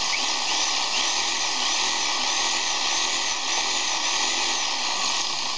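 Corded Milwaukee Sawzall's electric motor running at speed with its handle housing open, trigger held, in a test run of the newly wired cord and switch; it works. A whine in it rises and falls over and over, and it stops near the end.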